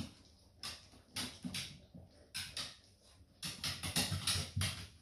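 A dog's claws tapping and scuffling on bare wooden floorboards as it moves about nosing for food, in irregular clicks that come thick and fast near the end.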